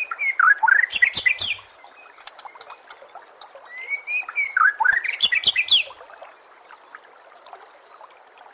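White-rumped shama (murai batu) singing: two loud phrases of whistles and fast sweeping notes, one at the start and another about four seconds in, over a faint steady background.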